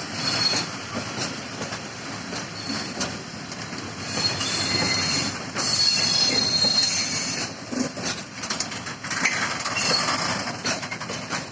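Loaded Eas-z open coal wagons of a freight train rolling past, wheels clattering over rail joints with a high squeal that comes and goes.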